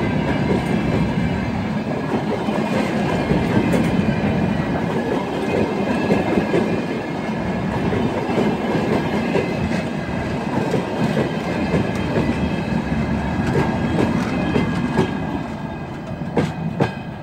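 Empty railway tank wagons of a freight train rolling past at close range: a dense rumble of wheels on rail with clicks over the rail joints and a thin, steady high ring above it. The sound fades near the end as the last wagon passes.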